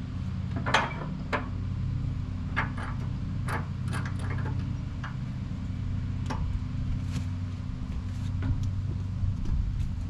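Wood-Mizer LX25 sawmill engine idling steadily, with a string of sharp clanks and knocks as the log is handled and set on the sawmill bed, thickest in the first half.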